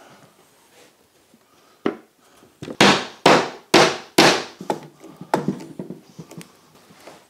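Mallet blows knocking the joints of a domino-jointed wooden table frame together: one sharp knock, then four hard blows about half a second apart, each ringing briefly. Lighter knocks and clicks follow as bar clamps are fitted across the frame.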